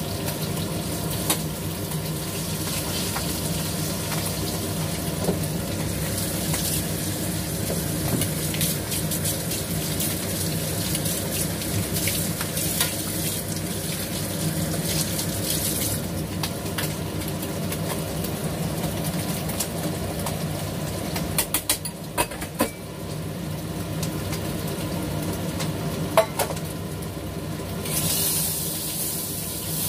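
Fish frying in hot oil in a pan, a steady sizzle that eases off about halfway through and picks up again near the end. Metal tongs click against the pan a few times about three-quarters of the way through, over a steady low hum.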